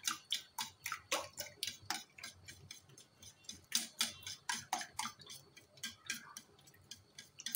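Wire balloon whisk beating eggs and milk in a steel bowl, its wires clicking against the bowl in a quick rhythm of about three to four strokes a second.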